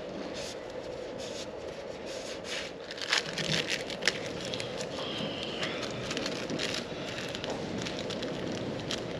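Light clicks, crackles and scrapes of a small screwdriver and fingers working rubber O-rings off an oil filter cartridge holder, busiest in the middle, over a steady low hum.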